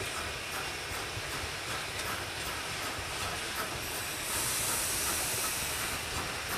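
Baldwin 2-10-0 Decapod steam locomotive No. 90 and its freight train rolling steadily, with repeated light clicks of wheels over the rails. About four seconds in, a hiss of steam starts and lasts around two seconds.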